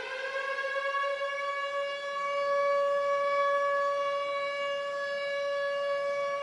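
Air-raid siren wailing: a single tone that rises slightly in pitch over the first second and then holds steady.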